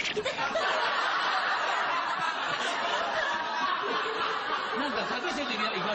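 Several people laughing and chuckling at once, a steady mass of laughter.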